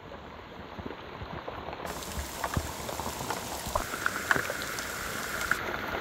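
Rain falling on the mangrove swamp's water and leaves: a steady patter and crackle of many small, irregular drops. A steady high-pitched tone joins about four seconds in.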